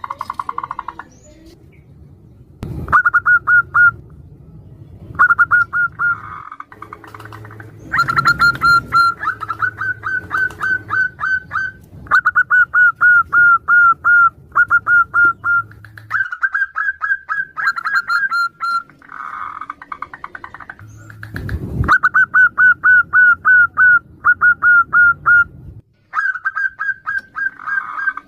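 Zebra doves (perkutut) calling back and forth: repeated quick runs of short, clipped notes, each run lasting one to two seconds, with a few softer, lower coos in between. Two brief low thumps come near the start and about two-thirds of the way through.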